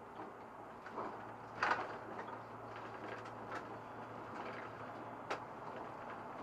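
SOR NB 12 city bus heard from inside: a steady low engine hum with a few short clicks and knocks, the loudest about a second and a half in.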